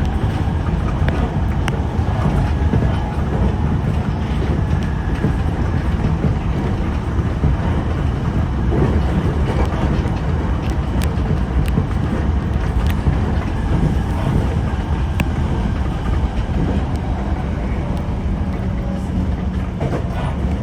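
E721 series electric train running, heard from inside at the front of the car: a steady low rumble of wheels on rail with a few sharp clicks scattered through it.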